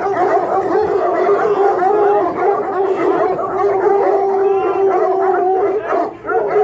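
A large pack of hunting hounds howling and baying together in one continuous, many-voiced chorus, excited while held back from their laid-out meal at feeding time. The chorus eases off near the end.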